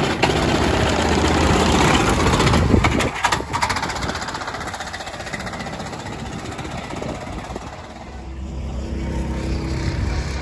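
Two-seater go-kart engine running loud as the kart pulls away, dying down after about three and a half seconds. From about eight seconds in, a steady kart engine hum from the track grows louder.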